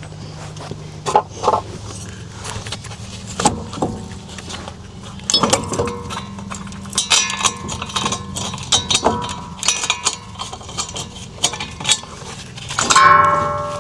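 Metal hand tools and brake or hub parts clinking, knocking and rattling while the hub and brakes are being reassembled, with a short ringing scrape of metal on metal near the end. A steady low hum runs underneath.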